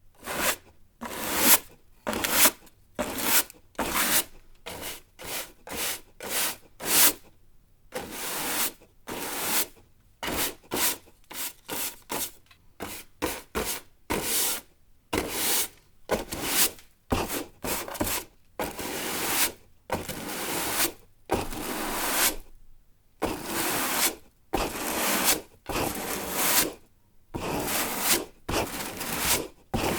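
Broom sweeping a hard floor in short, repeated strokes, each a brushing swish that swells and cuts off, about one to two a second.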